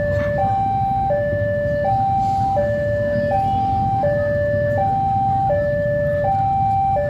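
Railway level-crossing warning alarm sounding: two tones, a lower and a higher, alternating evenly, each held for about three-quarters of a second, signalling that a train is approaching. A steady low rumble runs underneath.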